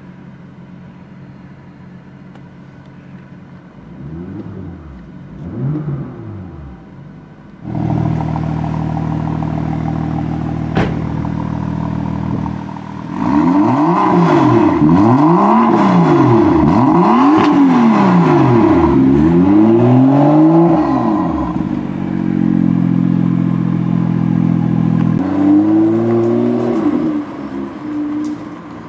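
BMW M2's turbocharged straight-six engine idling, blipped lightly a few times, then running louder from about 8 s in with a single pop near 11 s. From about 13 to 21 s it is revved hard about five times in a row, settles back to idle, and revs again near the end as the car pulls away.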